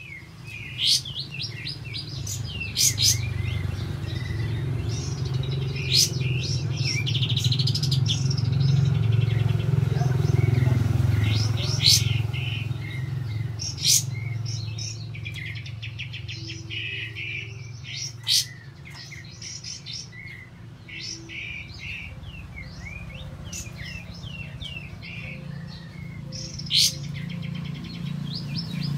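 Cream-vented bulbul (kapas tembak) singing without pause: quick chattering phrases and rolling trills broken every few seconds by sharp whistled notes, over a steady low rumble.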